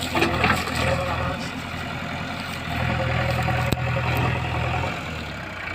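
Heavy diesel engine running steadily, growing louder for about two seconds in the middle as it works harder, then easing off; a single sharp click about two-thirds of the way through.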